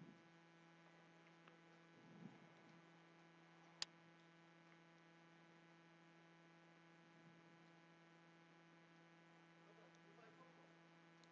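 Near silence with a faint steady electrical hum, and one small sharp click about four seconds in.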